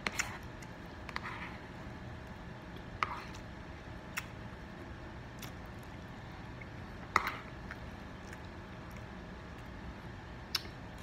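Close-up eating sounds: soft wet chewing of scrambled eggs, with a metal spoon clicking and scraping against the plate a few times, loudest about seven seconds in.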